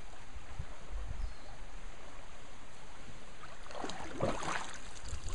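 Creek water flowing and gurgling around an inner tube, with a short run of splashes in the water about two-thirds of the way through.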